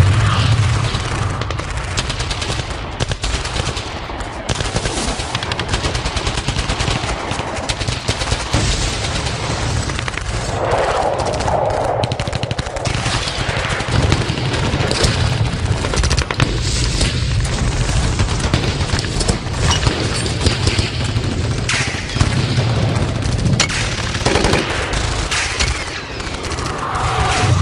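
Battle sound effect: sustained rapid machine-gun fire mixed with other gunfire, shots crowding one on another over a low rumble.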